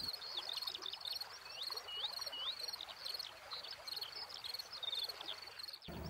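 A wildlife chorus of many short high chirps and whistled pitch slides, several a second, over a faint, evenly repeating high pulsing.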